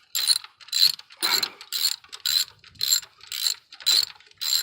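Ratchet wrench clicking in short, repeated strokes, about two a second, as it turns a spark plug socket on a long extension to work a spark plug loose from a V8 engine.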